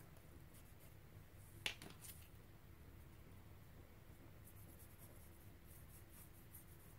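Near silence, with faint strokes of a pencil and brush on paper and one light tap, like a small tool set down on the table, about a second and a half in.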